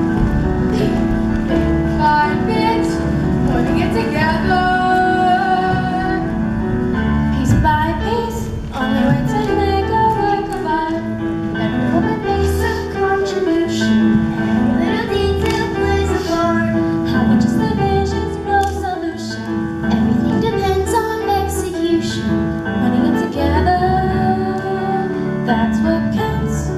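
Show-tune music with female voices singing over a full instrumental accompaniment.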